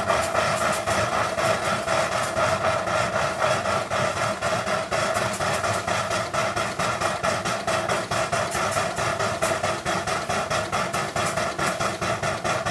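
Large model showman's steam engine running, its exhaust chuffing up the chimney in rapid, even beats, several a second, with water thrown out along with the steam: the boiler is priming because the steam pump has filled it right to the top with water.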